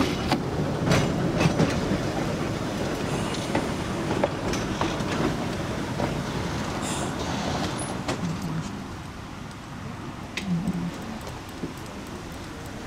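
Narrow-gauge electric tram car running on 2 ft 9 in track: steady wheel rumble with sharp clicks and clatter from the rails. It grows quieter through the second half as the tram slows.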